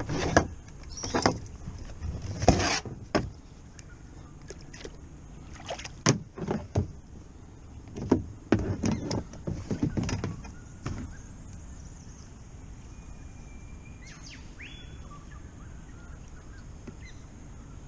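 Knocks, bumps and scuffs of gear and the fish being handled aboard a kayak, scattered over the first ten seconds or so, then quiet background.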